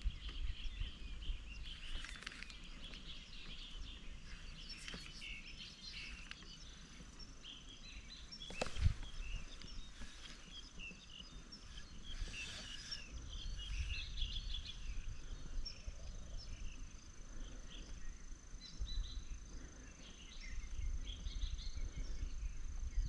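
Outdoor ambience of many small birds chirping and twittering, over a low rumble of wind on the microphone. A single sharp knock sounds about nine seconds in, and a thin steady high whine comes in about halfway through.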